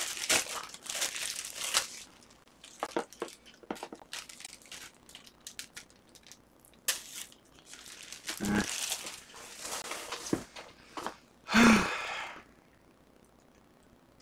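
Plastic packaging crinkling and tearing as a power cable is unwrapped, in short rustling bursts with two louder bursts in the second half. The rustling stops about two seconds before the end.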